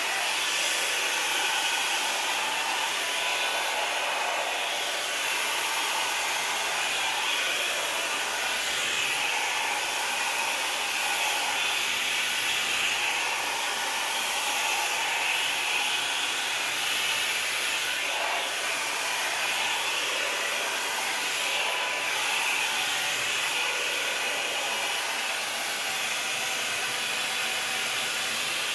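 Revlon Plus blow dryer running on its high setting: a steady rush of air with a faint motor whine, swelling and easing a little as it is moved through damp hair.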